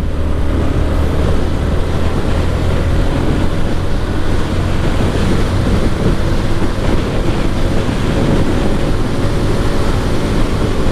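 Yamaha R15 V4 motorcycle pulling in sixth gear, its single-cylinder engine running steadily under heavy wind noise on the microphone.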